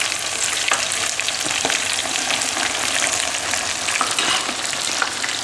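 Breadcrumb-coated chicken wings deep-frying in hot oil in a stainless steel pot: a steady sizzle full of fine crackles.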